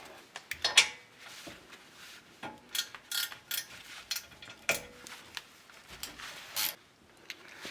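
Hand tools and small metal parts clinking and knocking as they are handled and set down, a scattering of separate sharp clicks over several seconds.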